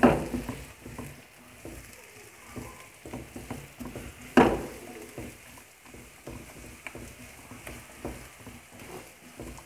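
Spatula stirring and tossing chopped onion, capsicum and spring onion in a non-stick wok: a run of scrapes and light knocks, with two louder knocks at the start and about four and a half seconds in, over a faint sizzle of frying.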